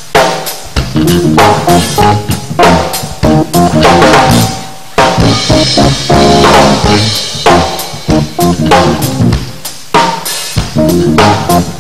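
Jazz band playing an instrumental passage live: a drum kit with bass drum and snare hits and rimshots, over electric bass and keyboard.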